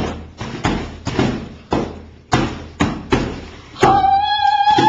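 A piñata being whacked over and over, about twice a second, with sharp thuds. Near the end a child lets out a long, high-pitched cry.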